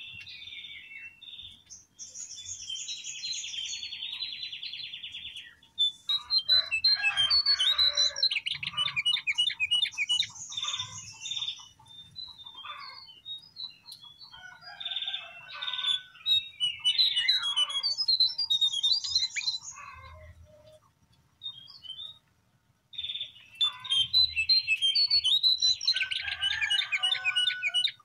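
Lesser shortwing (cingcoang coklat, jongkangan) singing: several bursts of rapid, jumbled high warbling mixed with buzzy trills, separated by short pauses, with one longer pause a little after two-thirds of the way through.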